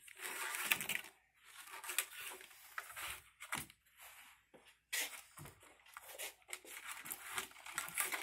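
Black corrugated plastic split wire loom being handled and pushed into place, rustling and crackling in irregular spurts with small clicks.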